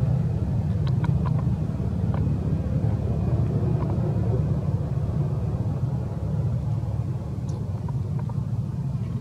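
Steady low rumble with a few faint clicks, and a brief faint high chirp about seven and a half seconds in.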